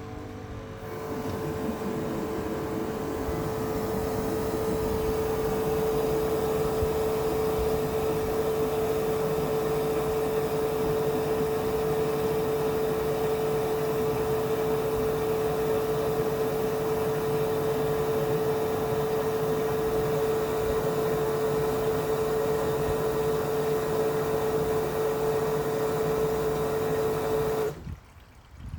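Nilfisk Premium 200 pressure washer running under load, a steady whine over rushing noise, as it drives water through the drain and tube cleaner hose into a drain. It starts about half a second in, builds over the first few seconds, and cuts off sharply about a second before the end.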